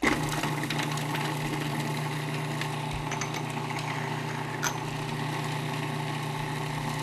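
Food processor running steadily, its blade chopping fresh parsley and garlic cloves; the motor starts suddenly right at the beginning.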